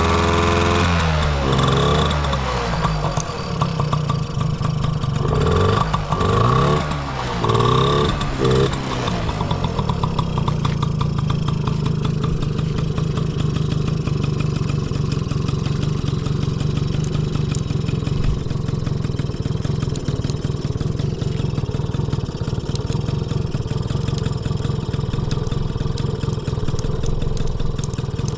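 Honda Motocompo's 49cc two-stroke single-cylinder engine revved in a few quick blips that rise and fall, then settling about a third of the way in to a steady idle. It revs up cleanly with no abnormal noise.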